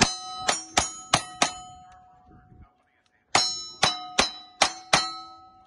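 Ten revolver shots at steel plate targets, fired in two quick strings of five with a pause of about a second and a half between them; each shot is followed by the bright ring of a steel plate being hit.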